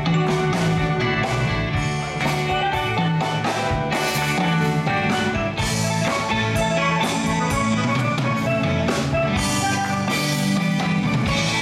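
Live band playing an instrumental passage, with electric guitar, a drum kit and keyboards.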